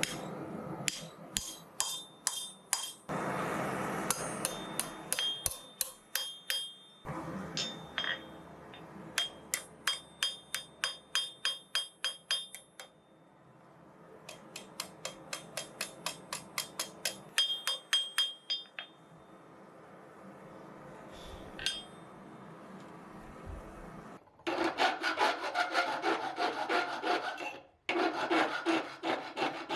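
Runs of quick metallic strikes on steel, about five a second, each with a ringing tone. Near the end, a file rasps in long strokes along the forged steel hook to clean up its sides.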